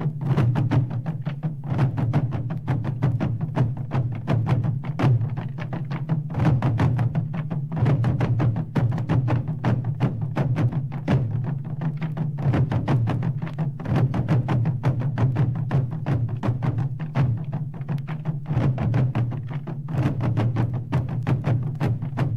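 Drum music: many drums struck in a fast, dense, unbroken rhythm.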